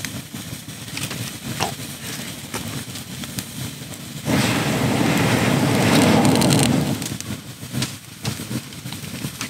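Campfire of split firewood crackling with scattered sharp pops. About four seconds in, a steady rush of breath is blown into the fire for nearly three seconds, then stops.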